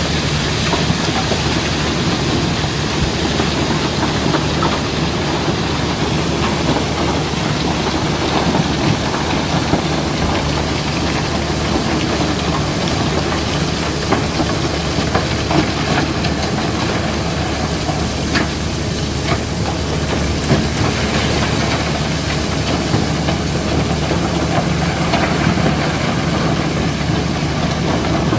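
River rock and crushed coal sliding and clattering down into an opening in a barge deck, a dense rattle of stones with many small clicks of rock on rock and steel. Under it a diesel engine drones steadily.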